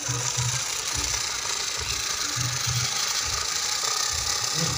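Homemade RC truck's drive motor and gears running as it drives over rough concrete, a steady whine with rattling from the chassis and irregular low thumps.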